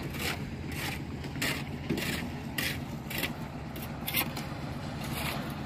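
A cement mixer's engine runs with a steady drone, and short scrapes come on top of it every half second to a second, from concrete being worked.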